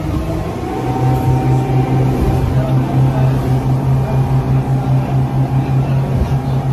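A boat's engine running with a steady low drone that firms up about a second in and holds, its loudness pulsing gently.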